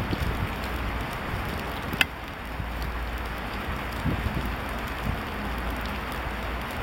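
Steady rushing background noise, with one sharp click about two seconds in and a few softer knocks later on.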